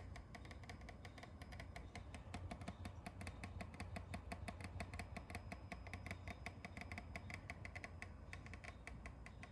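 8TB hard disk drive clicking, a rapid, uneven clatter of ticks ("katakata") over a steady low hum; the owner fears it is a sign the drive may break.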